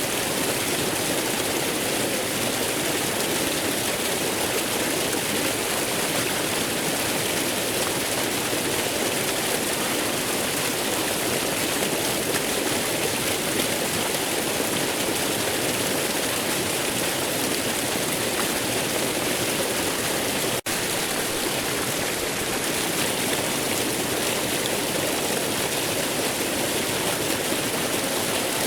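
Waterfall: a steady rush of falling water, with a split-second dropout about two-thirds of the way in.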